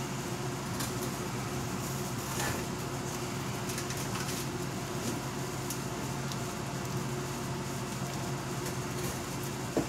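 Steady low mechanical hum, with a few faint, brief scrapes as a resin-wet brush is worked through a fiberglass gas tank half.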